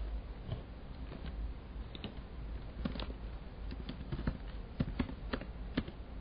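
Computer keyboard keystrokes: irregular taps as terminal commands are typed, a few sharper strokes in the second half, over a steady low hum.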